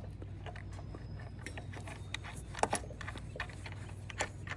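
Scattered light metallic clicks and taps of small hardware and tools being handled, with one sharper click about two and a half seconds in.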